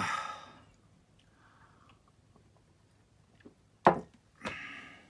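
A man's short 'ah' that falls in pitch and trails off into breath. After a quiet stretch, about four seconds in, comes another brief vocal sound followed by a breathy sigh.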